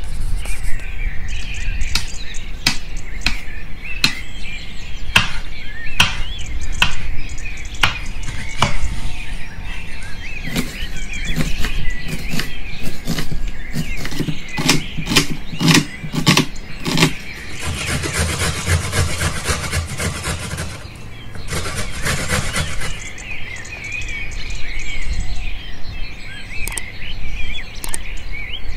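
Birds chirping throughout, with a run of sharp knocks from a knife chopping onion on a wooden cutting board in the first half, and a dense hiss for several seconds past the middle.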